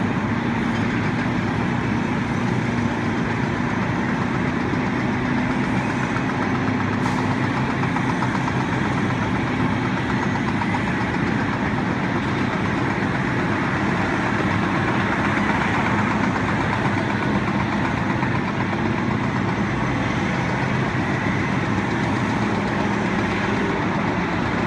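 A heavy engine running steadily, with a low hum that drifts slightly in pitch.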